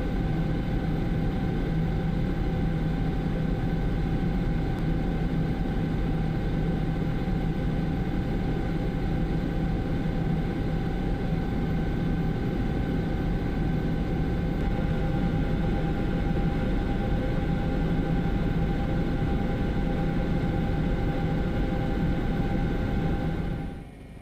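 Steady drone of a helicopter's engine and rotor, heard from on board, with a few steady tones running through it; it cuts off suddenly near the end.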